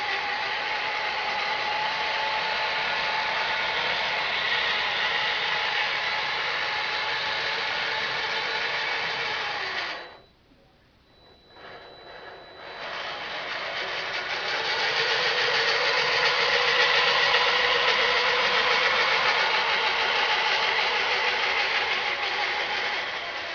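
Small motors and gearing of a model excavator undercarriage running with a steady gear whine. It stops for about two seconds near the middle, then starts again louder and lower in pitch.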